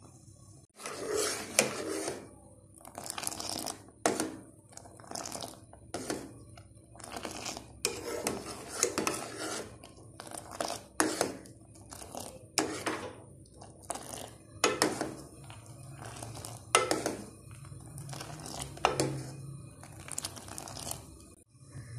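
A metal ladle stirring and scooping boiling milk tea in a stainless steel saucepan. It knocks and scrapes against the pan in a long string of irregular strokes, every half second to a second, that stops near the end.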